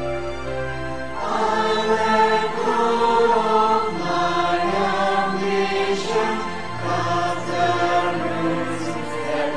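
A mixed choir singing a hymn, accompanied by a small ensemble of violins, cello, flutes, trumpet and piano. The instruments play alone at first, and the choir comes in about a second in with the line "I'll let go of my ambition", followed by "cut the roots that run too deep".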